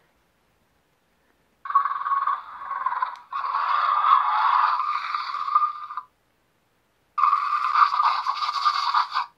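Mattel Grab N Growl Indoraptor toy's electronic voice box playing recorded dinosaur roars through its small speaker, set off by the button on the tail. One roar of about four seconds with a brief break partway through, then after a pause of about a second a second roar of about two seconds.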